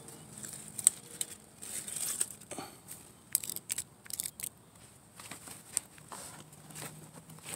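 Crisp loose-leaf lettuce rustling and snapping as it is harvested by hand, with a run of sharp crackles and snaps, the loudest just under a second in.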